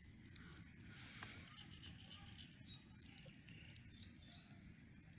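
Faint crackling of a campfire, a few small sparse pops, over a low steady rumble, with faint animal calls in the background.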